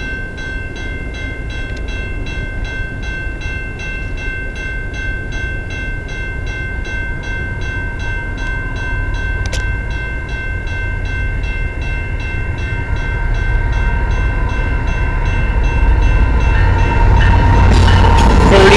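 Level-crossing warning bell ringing in an even rhythm while an approaching freight train led by GE ET44AC diesel locomotives rumbles closer, growing steadily louder as the locomotive reaches the crossing near the end.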